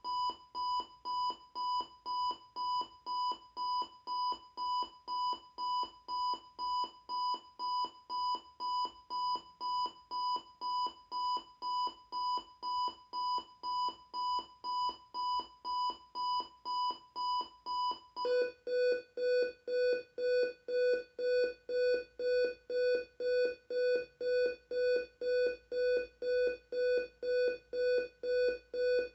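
Capello CR-22 clock radio's alarm beeping, about two short electronic beeps a second. About two-thirds of the way through, the beep drops to a lower pitch and gets a little louder.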